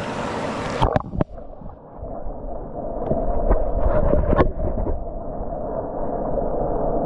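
Running stream water, then about a second in the microphone goes under the surface: the sound turns muffled and low, a steady underwater rush of the river with a few knocks and clicks from the hand and fish moving against the camera.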